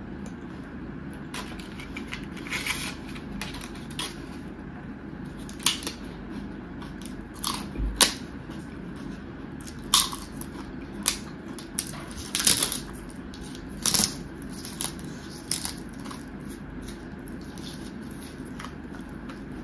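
Close-miked eating: crisp papad crunched between the teeth with chewing and mouth clicks, a dozen or so sharp crunches at irregular intervals over a steady low background hum.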